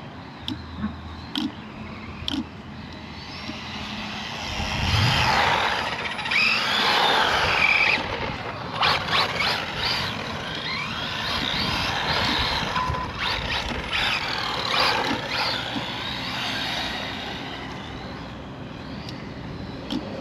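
Electric motor of a ZD Racing RX12 radio-controlled rally car whining as it is driven hard, the pitch rising and falling as it speeds up and slows. The whine grows loud about five seconds in and fades near the end, with a few short clicks at the start.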